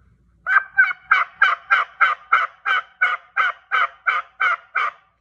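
Turkey diaphragm mouth call blown in a long series of yelps, about fourteen notes at roughly three a second, each breaking from a high note to a low one.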